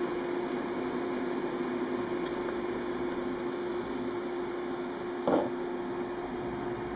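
Electric fan running with a steady hum and airy whir. A few faint ticks, and a short knock about five seconds in.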